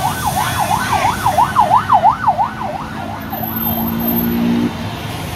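A siren wailing in a fast up-and-down yelp, about two to three sweeps a second, loudest early and fading away around four seconds in. A lower steady tone, like a held horn, sounds for about a second and a half near the end.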